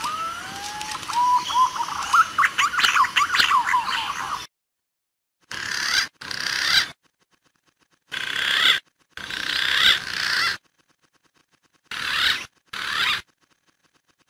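Green pigeon (punai) calls played as a bird lure. A few rising whistles break into a fast warbling, whistling chatter that lasts about four seconds, then come three pairs of short bursts of calling with dead silence between them.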